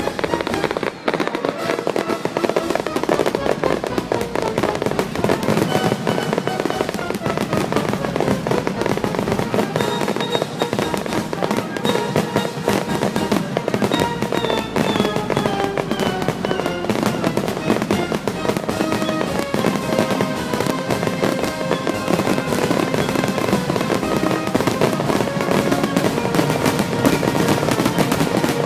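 Fireworks going off in rapid, continuous succession, a dense barrage of bangs and crackling, with music playing along throughout.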